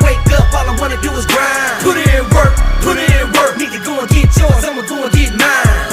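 Hip hop music with rapped vocals over a heavy bass line and a steady beat.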